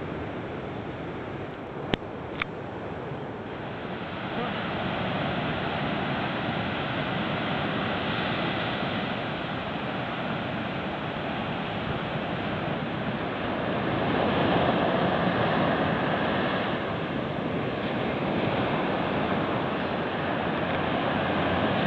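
Ocean surf breaking on a sandy beach: a steady wash of noise that swells about four seconds in and again around fourteen seconds, with some wind on the microphone. Two sharp clicks come about two seconds in.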